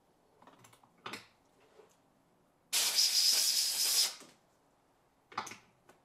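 A sharp blast of compressed air, about a second and a half long, starting and stopping abruptly, blowing chips out of the freshly tapped M4 blind hole in the brass knob. A light knock comes about a second in and another near the end.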